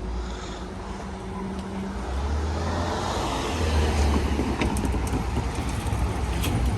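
Cars driving past once the crossing reopens, a low engine and tyre rumble that builds to its loudest about three to four seconds in.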